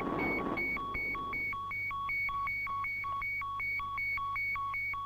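Ultraman Ace's Color Timer warning: a steady electronic two-tone beep, a high and a low note alternating about two and a half times a second. The sound signals that his energy is running low.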